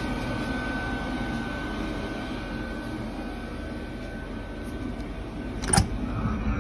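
Chinese diesel air heater running steadily: a low hum with a faint high whine, then a single sharp knock near the end.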